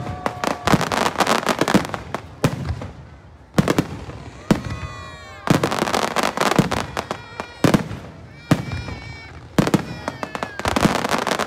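Aerial fireworks bursting in rapid salvos: sharp bangs following one another in quick clusters, with crackling between them. Twice, high whistles glide down in pitch among the bursts.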